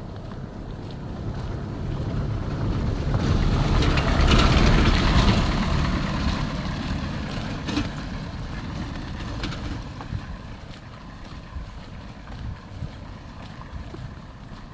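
A motor vehicle passing by: its engine and tyre noise build to a peak about four to five seconds in, then fade slowly away.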